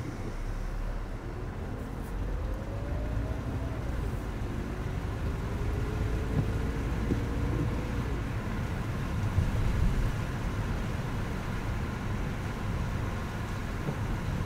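Car driving on a wet, slushy road, heard from the car itself: a steady low rumble of engine and tyres. An engine tone rises gently twice as the car picks up speed, then levels off near the middle.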